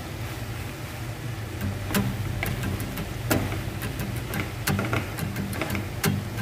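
Wooden spatula scraping and knocking against a nonstick frying pan as noodles and vegetables are tossed: irregular clicks over a steady low hum.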